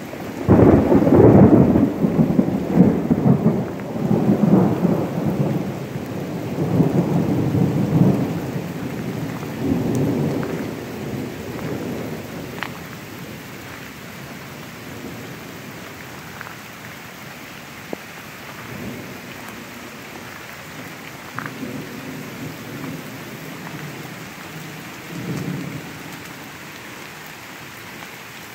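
Steady rain with a roll of thunder that breaks suddenly at the start, loudest in the first couple of seconds, and rumbles on in waves for about ten seconds before dying away. Fainter grumbles of thunder come back about twenty seconds in and again near the end, over the rain.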